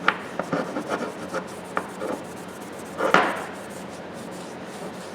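Handling clatter: a sharp click, then a scatter of light clicks and knocks, and a louder knock with a short scrape about three seconds in.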